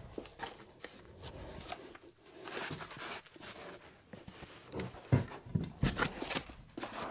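Footsteps with irregular knocks and rustling, and a few louder thumps about five to six seconds in.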